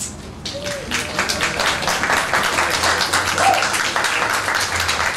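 Audience applauding: a dense patter of many hands clapping, building up over the first second as the band's music ends, then holding steady.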